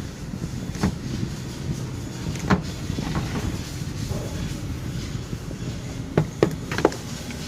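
A steady low rumble with a few sharp clicks or knocks: one about a second in, another midway, and three in quick succession near the end.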